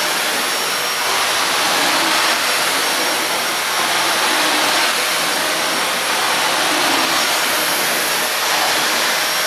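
Miele Swing H1 Powerline stick vacuum cleaner running on its high power setting, a steady loud rush of motor and suction with a thin high whine, as its floor nozzle is pushed over carpet.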